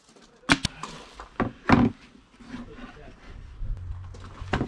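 Cordless nail gun firing two nails in quick succession, followed by chipboard panels being knocked about and set down on the workbench, with one heavier thump about two seconds in and a sharp knock near the end.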